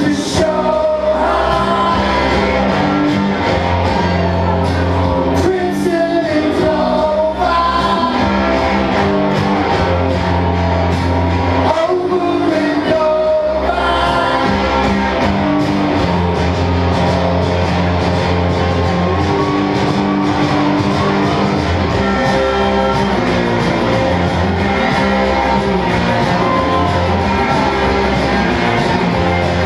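Live rock band playing electric guitars, with a man singing over them.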